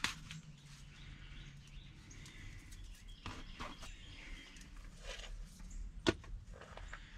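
Handling sounds of plastic airline tubing and tape being fitted to a small portable air pump: light rustles and small clicks. A sharp click comes at the start and another about six seconds in. Faint birdsong is in the background.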